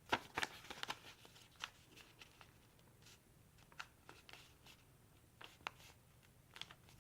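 Faint rustling and crinkling of paper as a paper airplane's wing is folded down and creased, in scattered short bursts with quiet stretches between.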